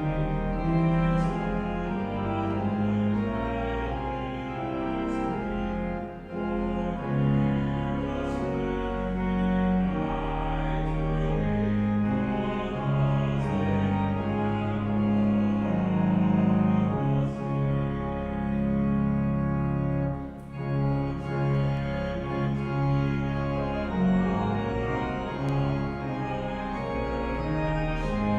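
Slow instrumental music of long, sustained notes over a deep bass line moving from note to note.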